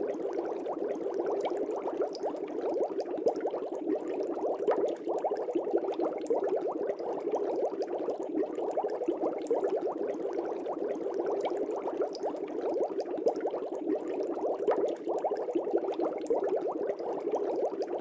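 Air bubbles rising and breaking in an aquarium: a steady, continuous bubbling made of many small pops.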